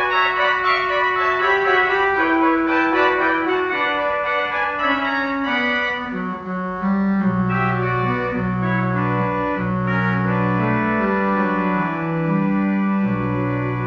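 Church pipe organ playing sustained chords in a full texture, with a low pedal bass line coming in about halfway through.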